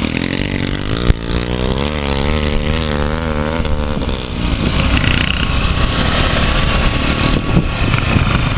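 Motorcycle engine running under way with a steady rushing noise behind it. From about one and a half to four seconds in, its pitch rises and falls repeatedly as the throttle is worked. There is a sharp knock about a second in.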